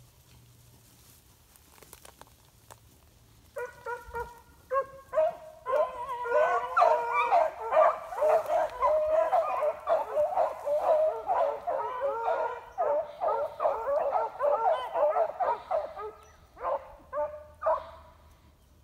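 Pack of beagles baying. A few single bays start about three and a half seconds in, then several hounds call at once in a dense overlapping chorus until about sixteen seconds, ending with a few last single bays.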